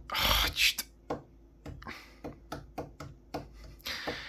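A run of light, irregular clicks, several a second, between a breathy rush at the start and another about four seconds in.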